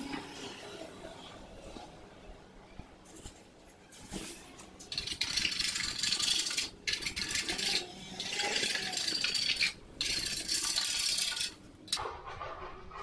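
A wide metal wallpaper scraper scraping along a plaster wall, stripping off wallpaper. It comes in three long scratchy strokes from about five seconds in, with short breaks between them.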